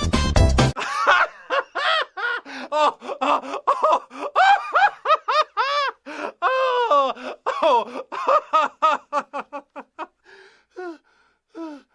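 Background music cuts off under a second in, then a long, high-pitched run of laughter in short bursts, several a second, that thins out and drops in pitch toward the end.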